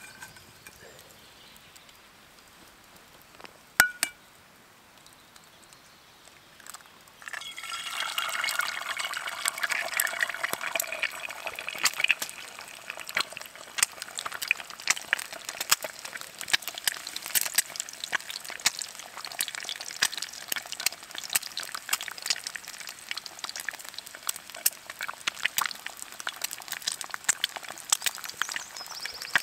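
A single clink about four seconds in. About seven seconds in, an egg hits hot fat in a frying pan and starts sizzling, loud at first, then settling into steady crackling and spitting.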